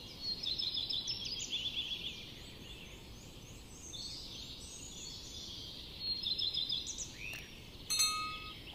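Birds chirping and trilling in quick, busy phrases over a steady background hiss. Near the end, a sharp click and a short ringing chime from a subscribe-button animation sound effect.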